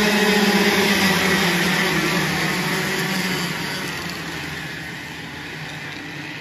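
A pack of racing kart engines at high revs, many pitches sounding together, fading steadily as the field pulls away.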